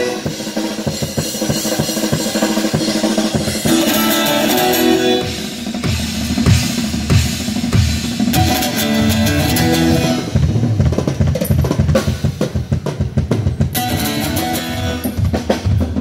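Amplified live band playing during a sound check: a drum kit keeping a beat on kick and snare, with guitar over it. The drum hits grow denser in the second half.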